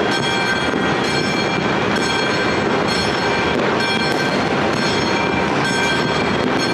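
Dense, continuous rumble and crackle of many fireworks going off across a city, with a high pitched tone that keeps coming and going on top.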